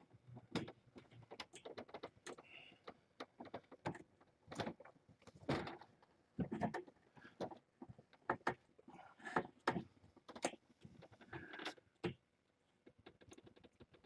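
Irregular handling noise as a towel is laid into a kitten kennel: rustling fabric with scattered knocks, clicks and soft thuds against the kennel, one or two a second, stopping for a moment about twelve seconds in.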